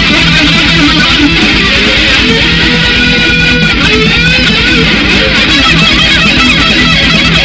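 Instrumental break in a metal song: electric guitars over a fast, steady rhythm, with a lead line of held, bending notes in the middle.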